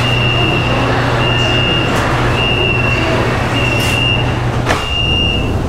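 Metro train door-closing warning beeping: one steady high beep repeated five times while the sliding car doors close, with sharp knocks as they shut about four seconds in, over the steady hum of the train's equipment.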